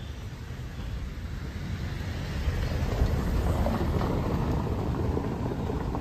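A Volkswagen hatchback drives past close by over cobblestones. Its tyres rumble on the stones, building to a peak about three to four seconds in and then easing a little as it moves off.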